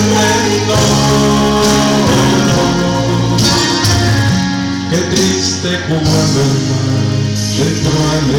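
A man singing a hymn to instrumental accompaniment, with sustained notes.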